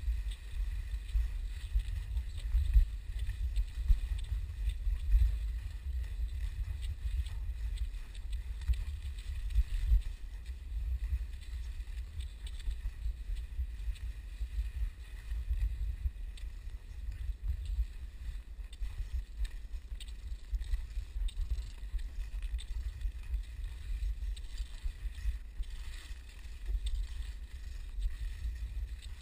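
Low, uneven rumble of wind and movement buffeting a body-mounted camera's microphone while skiing over packed snow.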